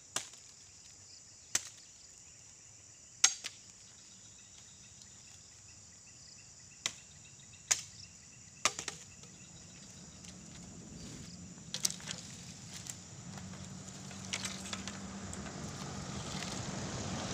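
Machete chopping at a bamboo pole: sharp single chops a second or more apart, about seven in the first nine seconds. Later come lighter knocks of bamboo poles being gathered, while an engine in the background grows steadily louder.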